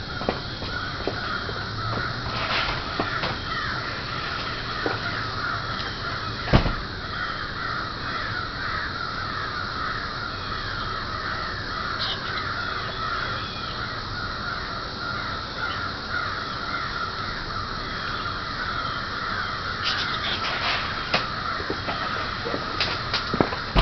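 A steady, dense chorus of high animal calls, unbroken throughout, with one sharp knock about six and a half seconds in.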